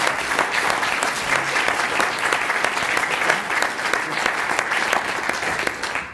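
Audience applauding, a dense steady clatter of clapping that dies away near the end.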